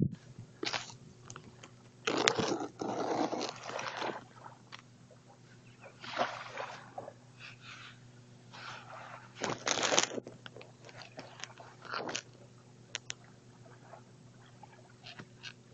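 Phone microphone handling noise: irregular crackling, rubbing and scraping with scattered sharp clicks as the phone is shifted about on the rocks, in several short spells with quieter gaps between, over a faint steady hum.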